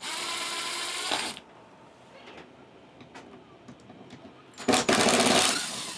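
Power drill running in two bursts, a short one at the start and a longer, louder one near the end, as screws are backed out to take a panel down, with small clicks and handling noises between.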